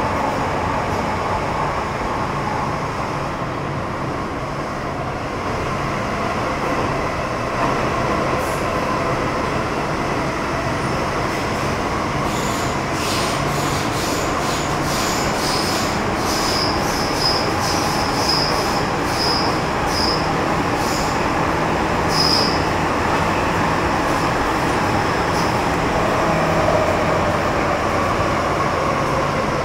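MTR Metro-Cammell M-Train electric multiple unit with GEC GTO chopper traction, running between stations, heard from inside the car: steady rolling noise and a motor hum that drifts in pitch. Short, high-pitched wheel squeals come about once a second through the middle, and the motor tone slides lower near the end.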